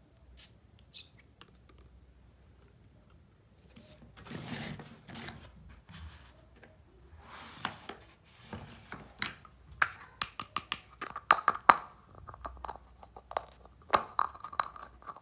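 Small plastic toy kitchen pieces being handled: a brief rustle, then a run of sharp clicks and taps that grows busier and louder towards the end, over a faint steady tone.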